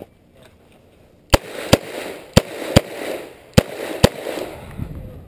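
Smith & Wesson 686 revolver firing six shots in three quick pairs, starting about a second and a half in. Each shot is a sharp crack trailing off in echo.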